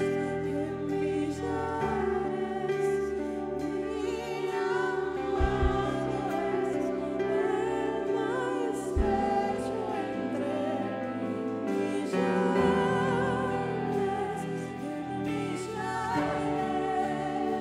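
A woman singing a slow worship song with vibrato into a microphone, over live band accompaniment with bass guitar and sustained chords.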